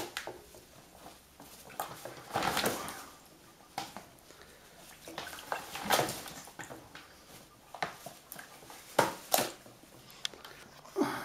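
Blue-and-gold macaw bathing in a bucket of water: irregular bursts of splashing and wing flapping every second or two, with a few sharp clicks in the later part.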